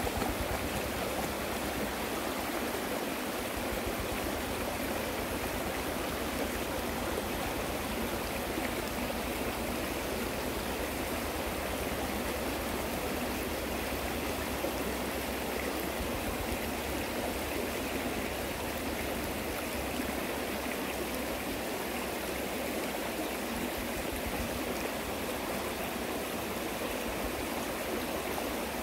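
Steady rushing of flowing water, like a stream.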